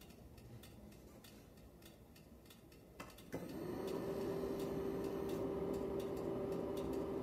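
Honda CB400SB being switched on before starting: faint ticking, then a click about three seconds in and a steady electrical hum that starts just after it and holds, as the ignition comes on and the gauges sweep.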